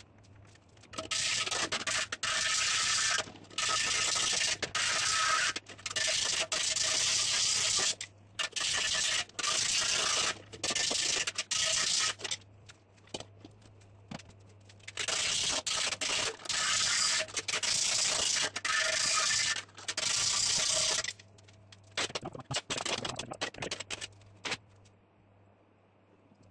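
Abrasive rubbing, like sanding, as a steady rasping hiss in long runs of several seconds with short breaks, ending in shorter bursts a couple of seconds before the end.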